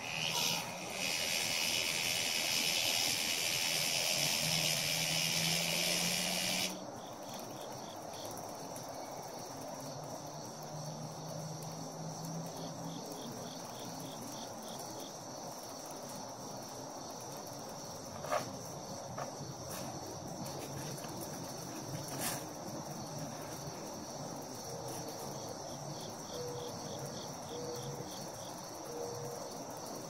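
A cicada buzzing loudly, a high rasping drone that starts just after the beginning and cuts off suddenly after about six and a half seconds. A fainter, steady high insect chorus continues, with two short clicks later on.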